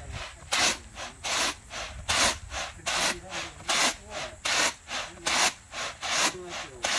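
Mung beans being winnowed in a woven straw winnowing basket: a rhythmic rushing swish of beans sliding and tossing against the straw, about two to three strokes a second, louder and softer strokes alternating.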